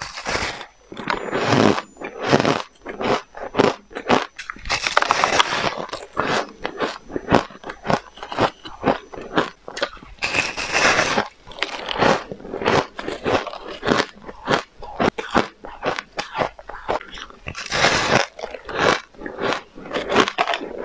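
Close-miked biting and chewing of frost-coated ice chunks: a continuous run of crisp, irregular crunches, with louder bites now and then.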